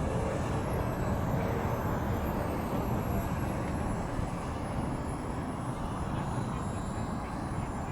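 Small RC model jet turbine engine running with a thin, high whine that drifts slightly up and then down in pitch. Wind rumbles on the microphone underneath it.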